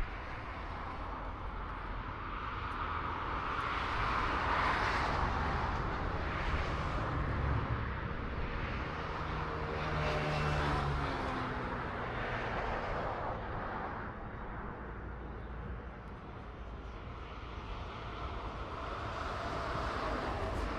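Motor traffic passing: engine noise swelling and fading, with one vehicle loudest about ten seconds in, its pitch dropping as it goes by.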